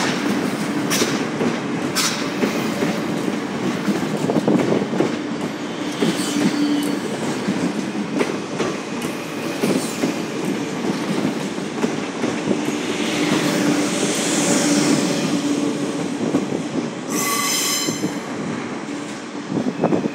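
A double-deck electric regional train runs past close by, with a steady rumble of wheels on rail, clicks over the rail joints and a low hum that comes and goes. A brief high wheel squeal comes near the end.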